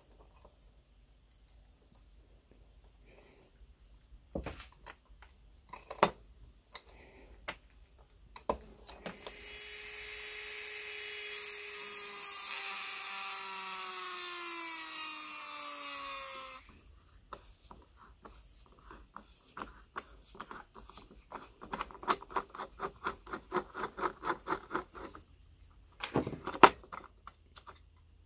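A screwdriver clicks and scrapes against rivets on the enamelled steel wick holder of a Haller kerosene stove. A rotary tool then spins up and grinds a rivet head with a small abrasive cut-off disc for about seven seconds, its whine dropping in pitch as the disc bites, and it stops abruptly. After that come quick scraping strokes, about three a second, and a few knocks.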